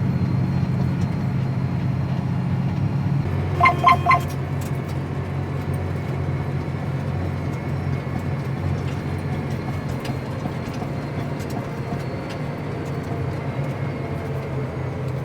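Farm tractor engine running steadily while pulling a disc across a field. Three quick electronic beeps come about four seconds in.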